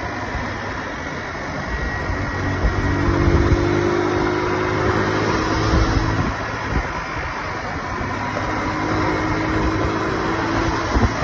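Honda street motorcycle riding at highway speed: its engine drones steadily under a continuous rush of wind and road noise, with a pitched engine note rising above it twice for a few seconds.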